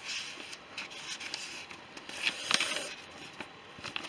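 Paper instruction booklet being handled and its pages turned: irregular papery rustles and scrapes, the loudest about two and a half seconds in.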